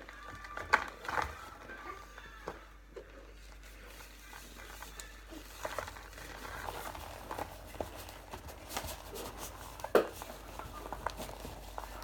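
Chunks of cornstarch being crunched: irregular crackles and sharp snaps, the loudest about a second in and again near the end.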